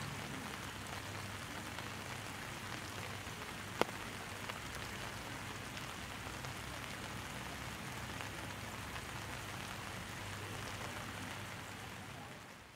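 Steady rain falling, an even patter of drops, with a single sharp tick about four seconds in; it fades out near the end.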